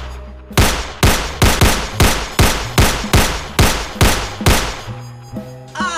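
Rapid pistol gunfire: about a dozen shots in quick succession, two to three a second, each cracking sharply and dying away quickly. The shots stop about four and a half seconds in, and a few low held tones come in near the end.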